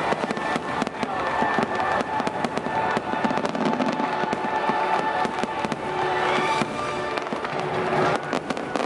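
Fireworks bursting and crackling in many quick pops, over music playing.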